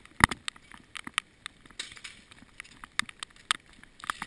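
Raindrops tapping irregularly on the camera's housing as scattered sharp ticks, with one louder knock about a quarter second in.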